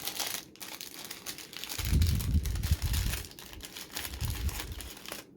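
Packaging crinkling and rustling as a wrapped item is handled and unwrapped, with dull low bumps of handling from about two to three seconds in and briefly again near four seconds.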